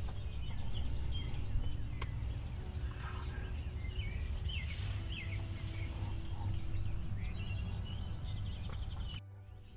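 Several songbirds chirping and singing in quick, overlapping phrases over a steady low rumble. The background drops off abruptly near the end.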